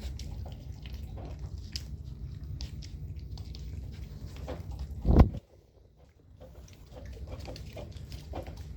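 Dachshund puppies eating, with many small clicks of chewing and biting, and one loud thump about five seconds in.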